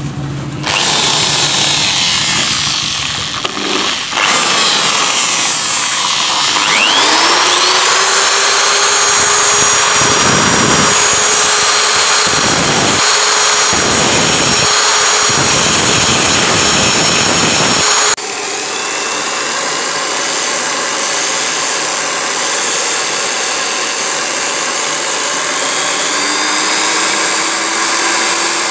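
Bench grinder and electric drill running as brass wire spun in the drill is ground down into a carburetor jet needle; the whine rises and then holds steady. About two-thirds through, the sound changes abruptly to a quieter, steady drill whine as the spinning needle is worked with coarse sandpaper.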